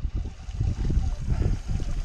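Water lapping against the hull of a small fishing boat, with an uneven low rumble.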